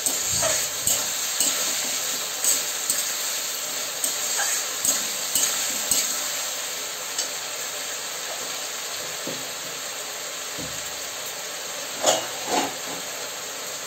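Sliced onions and tomatoes sizzling in mustard oil in a metal kadai while a flat metal spatula stirs and scrapes against the pan, with a click every half second or so for the first several seconds. The sizzle then goes on steadily and a little quieter, and about two thirds of the way through there are two knocks as the spatula is set down in the pan.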